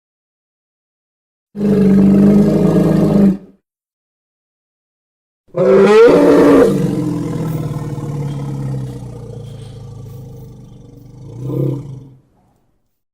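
Two triceratops roar sound effects with silence between them: a short steady roar of about two seconds, then a longer roar that sweeps up in pitch at its start and slowly fades over some six seconds, swelling briefly once more near the end.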